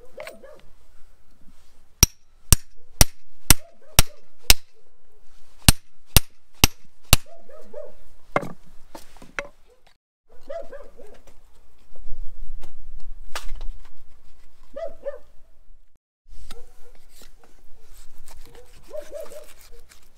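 A hatchet hammering on the back of a knife driven into a goat's rib section on a wooden chopping stump: ten sharp metallic strikes about two a second, in a run of six and then four after a short pause, with one more strike later. Short animal calls come between the strikes.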